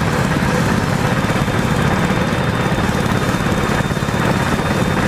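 Mini bike's small single-cylinder engine running steadily under way, a fast, even putter heard from the rider's seat.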